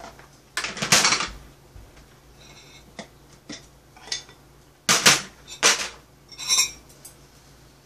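Plastic food-storage containers and dishes clattering on a metal tray as a lid is pulled off and side dishes are set out: a series of separate knocks and clatters, with a couple of short ringing clinks.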